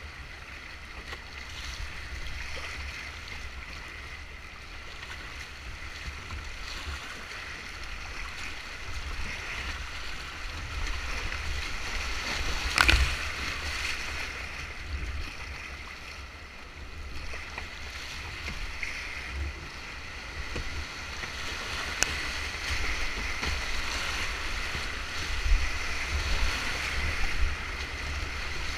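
Whitewater rapids rushing and splashing around a kayak's hull as it runs down the river, swelling and easing as it goes. A single sharp knock stands out about 13 seconds in, with a fainter click later.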